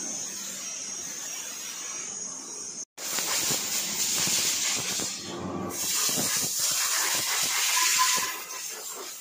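Steady hissing, cut off briefly about three seconds in, then louder in two long stretches of a couple of seconds each.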